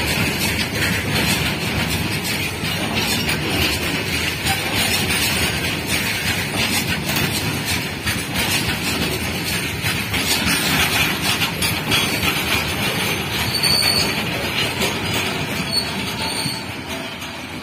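BCNHL covered freight wagons rolling past close by, their wheels clattering on the rails, with a couple of short high wheel squeals near the end. The sound fades over the last couple of seconds as the rear of the train moves away.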